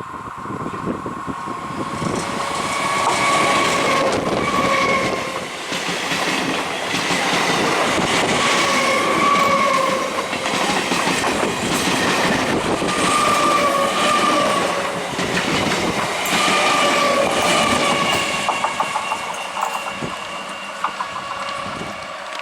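Train passing close at speed, its wheels clattering over the rail joints and fading away near the end. Its horn sounds in several separate blasts while it goes by.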